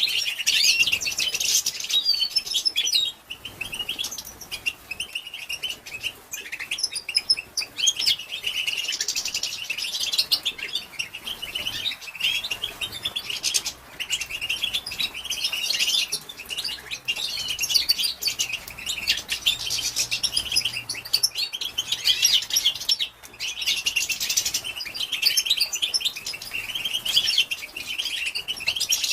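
Female European goldfinch twittering: a rapid, continuous chatter of high chirps with only brief pauses, the 'batbata' call used to excite male goldfinches into song.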